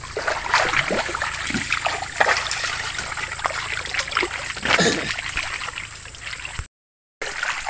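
Hands splashing and squelching in shallow muddy water as people grope through the mud for lokan mud clams, with water sloshing and trickling in irregular bursts. The sound cuts out completely for about half a second near the end.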